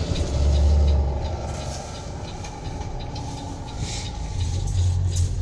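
PACCAR diesel engine of a 2021 Peterbilt 337 truck, heard from inside the cab while driving slowly and turning: a low, steady drone that eases off after about a second and swells again near the end.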